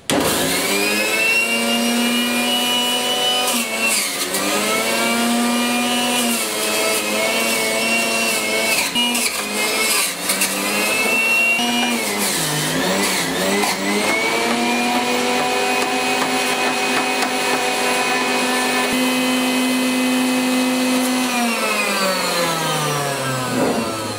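GourmetMaxx electric juicer motor running with a steady hum, its pitch dipping and recovering several times as pineapple and ginger pieces are fed through and load it down, with a few knocks from the pieces. Near the end it is switched off and winds down with a falling pitch.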